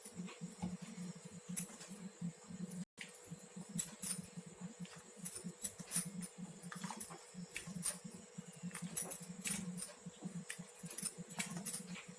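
Light, scattered clicks and taps of a ladle against the pan as the cooked kuzhambu is transferred into a serving vessel, over a faint steady hum.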